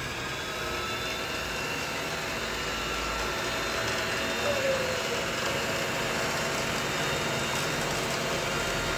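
Usha Janome Dream Stitch electric sewing machine's motor running steadily at speed, driven by the foot controller.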